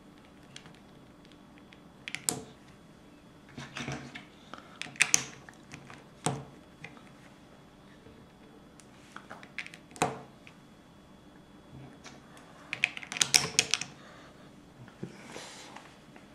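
Plastic Lego pieces clicking and tapping as tiles are pressed onto a baseplate: scattered sharp clicks, with a quick cluster of clicks near the end.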